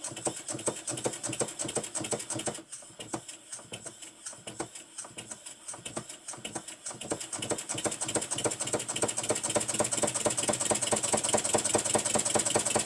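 Twin-cylinder horizontal model steam engine running with a rapid mechanical clatter and a steady hiss, picking up speed and getting louder about halfway through. The engine is worn and has a lot of play in its connecting rod and big-end brasses.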